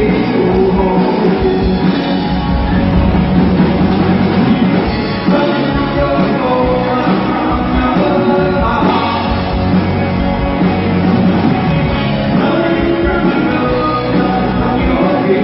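Live rock band playing a song: electric guitars, bass guitar and a drum kit, loud and steady.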